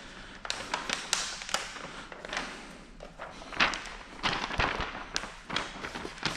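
A large sheet of paint protection film crackling and crinkling in irregular sharp snaps as it is handled and pulled into place.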